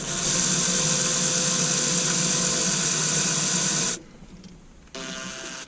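Electric drill running steadily as a small twist bit cuts into soft aluminum, stopping about four seconds in, then a short second burst near the end.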